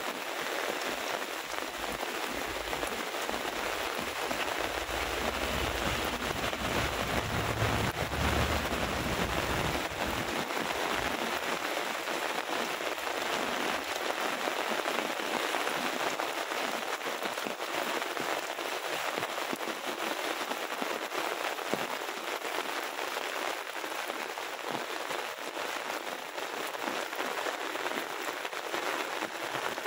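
Heavy rain falling steadily, a dense even hiss of drops. A low rumble swells in for several seconds in the first half, then fades.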